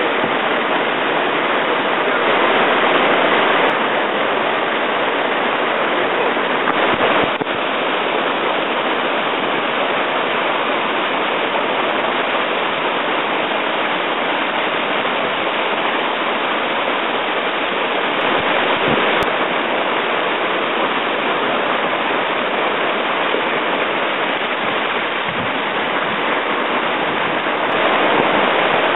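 Whitewater rapids: a steady rush of fast water pouring over rocks, unbroken throughout.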